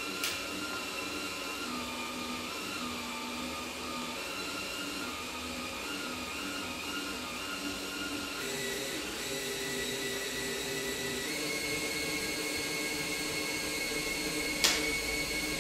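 Cordless drill running steadily as it drives the Lil Buddy Mongoose winder, reeling cutting line through the windshield urethane; its whine shifts in pitch a little over halfway through. A sharp click sounds just after the start and again about a second before the end.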